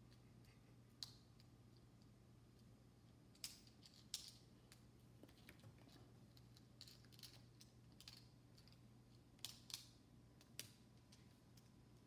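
Faint, scattered clicks and taps of small plastic building bricks being handled and snapped together, with a few sharper clicks in two clusters, a few seconds in and again near the end.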